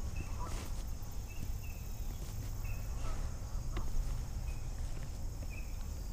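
Outdoor ambience: a steady low rumble of wind on the microphone, with short high chirps from small wild animals every second or so.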